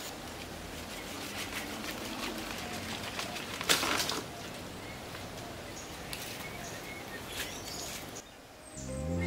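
Outdoor ambience with short bird chirps. A brief loud rustle comes just before four seconds in, as the jackfruit is handled among the leaves. Music starts near the end.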